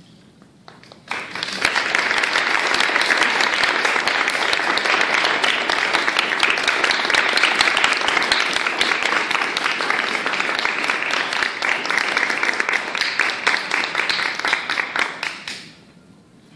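Audience applauding: the clapping breaks out about a second in, holds steady, and dies away near the end.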